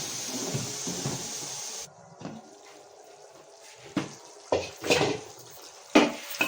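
Pressure cooker letting off steam in a steady hiss that cuts off suddenly about two seconds in, followed by several sharp metal clanks of the pot and lid being handled.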